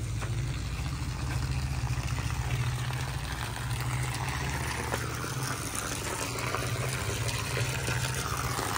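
Water running and splashing steadily, water going to waste from a tank. A low motor hum underneath stops about five and a half seconds in.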